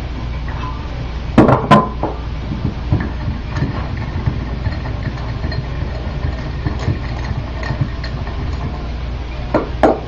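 Sharp knocks and clicks from parts of a dome truck wheel assembly being handled and fitted: a quick group of three about a second and a half in, smaller ticks in between, and two more knocks near the end, over a steady low hum.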